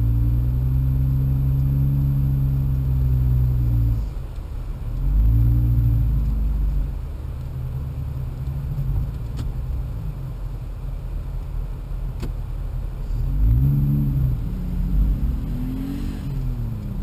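Jeep Wrangler's engine working along a rough dirt trail, its pitch rising and falling as the throttle is opened and eased: held up for the first few seconds, a short surge about five seconds in, and several quick revs near the end, over a steady low rumble.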